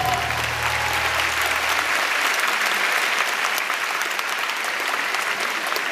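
Audience applauding, with the last held note of the music dying away in the first couple of seconds.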